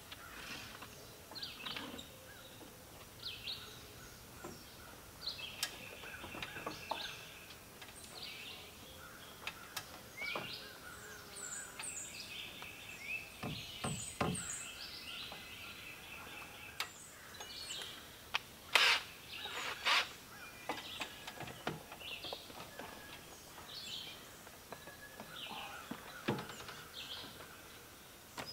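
Woodland birds singing, with many short chirps and trills throughout. A few sharp knocks from handling the log rafter and tools come in between, the loudest two close together about two-thirds of the way through.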